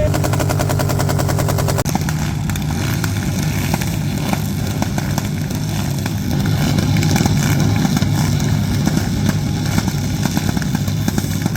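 Motorcycle engine revved hard through a loud exhaust. It holds a steady high pitch for about the first two seconds, then runs on with rough, fluctuating revs.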